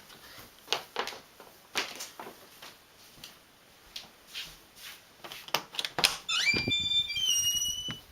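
A few soft shuffling steps, then, about six seconds in, a door creaking open with a loud, drawn-out squeal that slides up and steps down in pitch.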